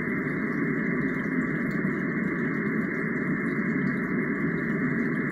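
Steady sideband receiver static: band noise hissing through a Xiegu G90 transceiver's speaker on the 11-metre CB band, with no station transmitting, an even rushing noise cut off below and above the narrow voice passband.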